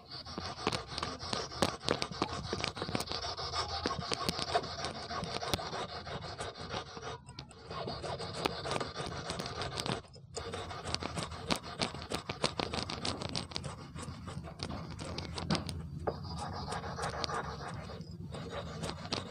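Fine sandpaper wrapped on a stick rubbed rapidly back and forth over the tip of a 3 mm brass wire, a dense scratching with brief pauses about seven and ten seconds in, as the point of a brass eel hook is smoothed.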